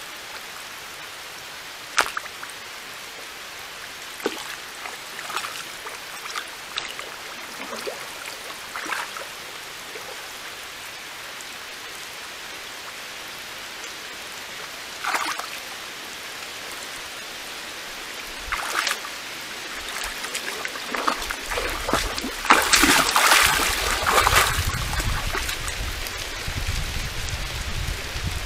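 Red deer hind wading in a shallow pond: scattered single splashes and drips over a faint steady hiss, then a few seconds of louder, continuous sloshing and splashing as she moves through the water near the end.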